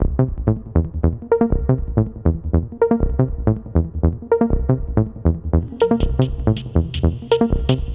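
Background electronic dance music with a steady, fast beat, starting abruptly. A higher hissing layer joins about six seconds in.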